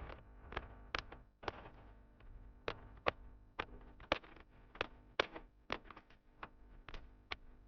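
A series of irregular sharp clicks and taps, two or three a second, varying in loudness.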